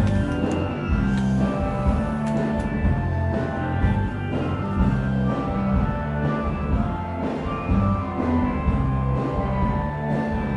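Rock music with guitar and drums playing steadily at a fairly loud level.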